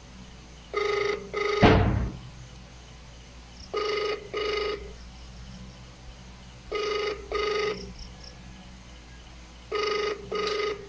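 Phone ringback tone played through a smartphone's loudspeaker: a double ring repeating about every three seconds, four times, meaning the dialled phone is ringing and nobody has picked up yet. A loud thump sounds about two seconds in.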